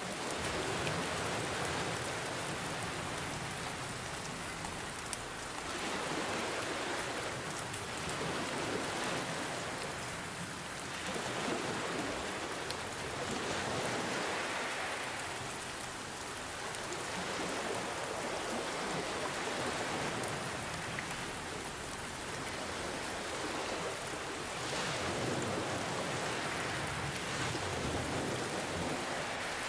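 Steady rain hissing over ocean surf that swells and ebbs every few seconds.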